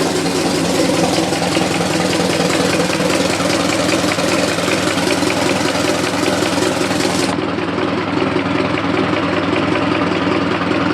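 Car engine idling with a regular knock or tick running through it, recorded close in the engine bay while the source of the knock is being located. The sound turns duller about seven seconds in, as the treble drops away.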